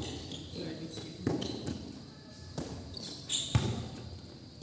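Basketball being dribbled on a concrete court: about five sharp bounces at uneven intervals, the loudest about three and a half seconds in.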